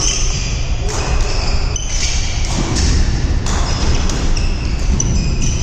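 Badminton rally: rackets strike the shuttlecock about once a second, with short high squeaks from shoes on the wooden court floor, echoing in a large hall.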